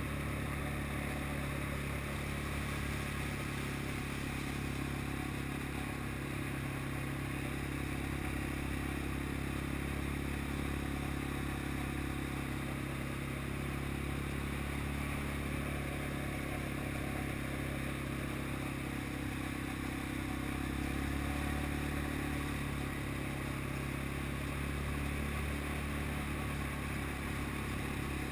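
ATV engine running at a steady, even pace while the quad rides along a dirt trail.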